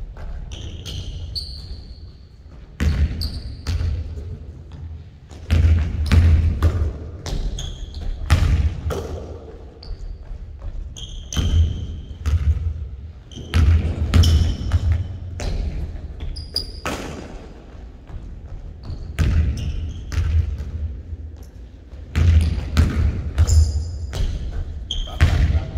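Basketball bouncing on a hardwood gym floor in clusters of dribbles, ringing in a large hall, with short high-pitched sneaker squeaks on the floor between them.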